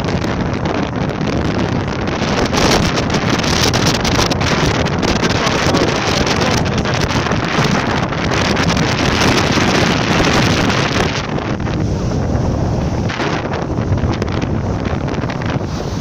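Strong wind buffeting the microphone in gusts, with surf breaking and washing up a sandy shore beneath it; the gusts ease a little near the end.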